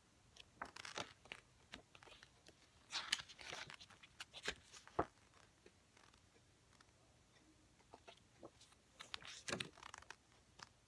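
Glossy photobook pages being turned by hand: short paper swishes and flaps in a few separate bursts, with quiet between.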